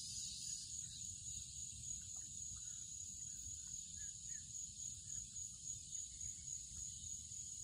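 A steady, high-pitched drone of insects, with scattered faint short chirps over a low rumble.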